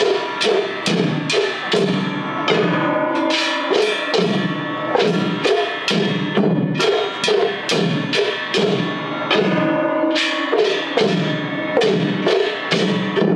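Festival hayashi music from several floats playing together: big taiko drums and large hand-held brass gongs (kane) struck in a fast, steady rhythm, about three strikes a second, the gongs clanging and ringing over the drums.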